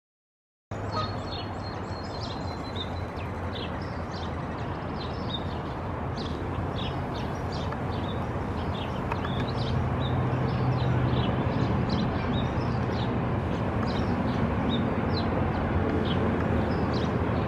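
Pond-side ambience that cuts in under a second in: a steady low rumble of background noise, a little louder in the second half, with many short, high bird peeps and chirps scattered throughout.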